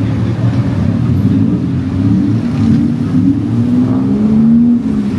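Road traffic close by: vehicle engines running, with one engine revving up in a rising pitch during the last second or two.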